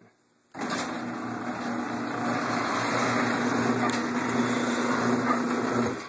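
Electric garage door opener running as the door opens: a steady mechanical drone that starts about half a second in, grows slightly louder, and stops abruptly after about five seconds when the door is fully up.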